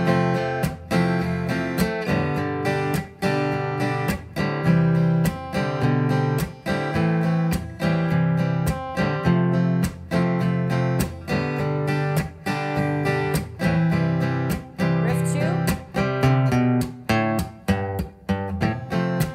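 Steel-string acoustic guitar strummed in a steady rhythm through a chord progression, the chords changing every few beats.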